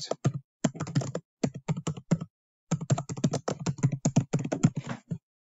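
Typing on a computer keyboard: quick runs of keystrokes with a brief pause a little over two seconds in.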